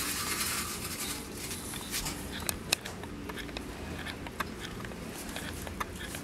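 Eskimo dog puppies moving about in a cardboard box lined with shredded paper. There is a short burst of paper rustling at the start, then scattered light clicks and scratches, one sharper click a little before the middle.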